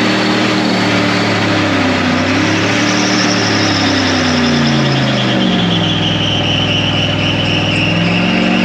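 A GM 2500HD pickup's 6.0 Vortec V8 revving hard through a burnout, its pitch wandering up and down, dipping about five seconds in and climbing again near the end. Over it runs a high squeal from the spinning rear tires that slowly falls in pitch.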